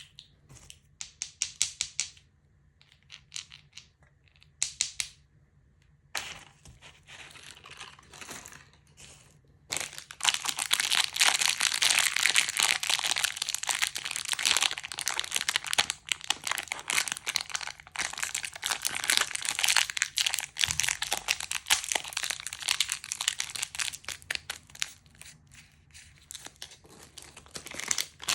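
Candy wrappers being handled and unwrapped: scattered crinkles and crackles for about the first ten seconds, then continuous dense crinkling.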